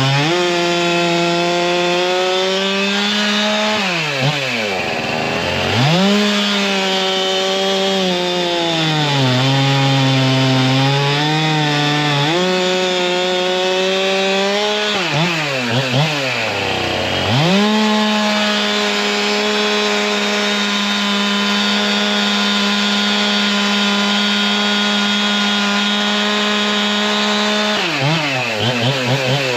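Two-stroke chainsaw with a 32-inch bar and full-skip chain, held at full throttle through three cuts in a log. The engine note sags under load in the wood. Between cuts it drops off sharply and then revs back up.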